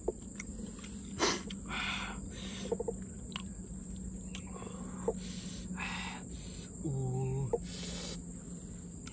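Eating grilled snails: repeated short sucking and slurping sounds as the meat is drawn out of the shells, with small clicks. Near the end comes a brief closed-mouth 'mm' hum of enjoyment.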